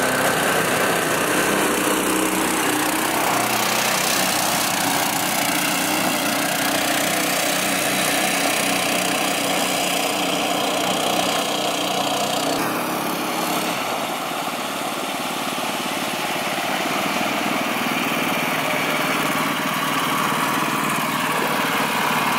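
Twin-engine longtail mud motor, two Harbor Freight small gas engines, running steadily as it pushes a jon boat through shallow marsh.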